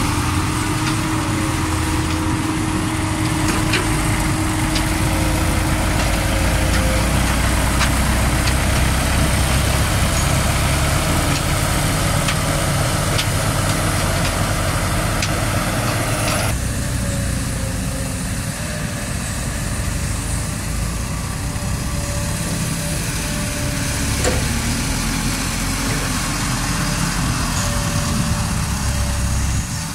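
Diesel engines of light dump trucks running steadily with a low hum, as one tips its load and pulls away; the sound changes abruptly about halfway through to another loaded dump truck's engine.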